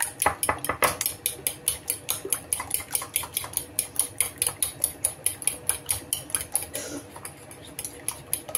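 Metal utensil beating raw eggs in a ceramic bowl: rapid, even clinking against the bowl at about six strokes a second, easing briefly near the end.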